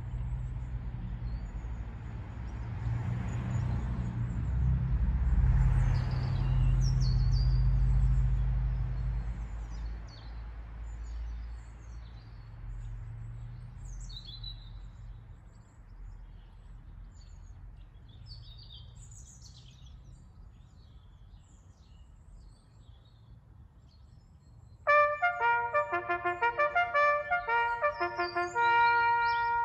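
Outdoor stillness with scattered bird chirps and a low rumble that fades over the first ten seconds. Near the end a trumpet starts a bugle call of short, loud, repeated notes, marking the end of the two minutes' silence.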